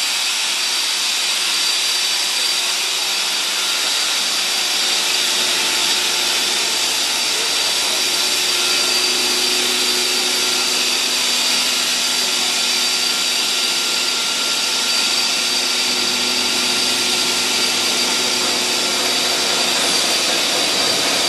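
PE plastic pipe extrusion line running: a steady hum and hiss of its electric motors and water pumps, with a steady high whine over it.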